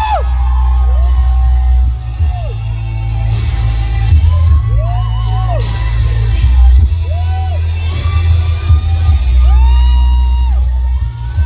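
Loud music with a heavy, steady bass under a singing voice that holds long notes, gliding up into and down out of each, with a quick wobble on one note about five seconds in.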